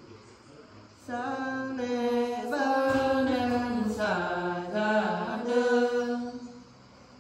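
Nùng women singing a traditional folk song unaccompanied, in long, slow held notes. The phrase starts about a second in, wavers and falls in pitch, and fades out near the end.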